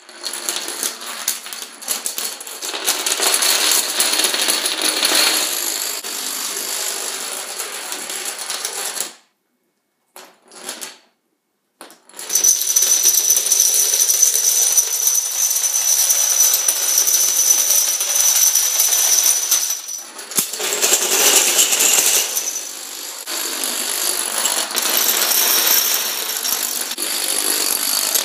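Long runs of dominoes toppling in sequence, a dense, rapid clatter of small wooden and plastic pieces knocking against each other and onto the floor. The clatter stops for about three seconds around nine seconds in, then resumes.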